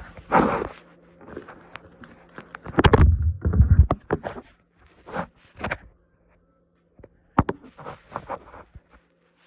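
Handling noises: irregular rustles, clicks and light knocks, with a few heavier thumps about three seconds in, over a faint steady hum.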